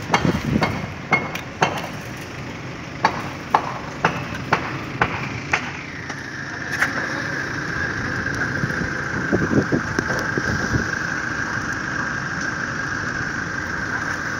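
Scattered clicks and knocks of hands handling the cover and wires of a sliding-gate operator's controller. From about six seconds in, a steady high-pitched mechanical whine sets in and holds.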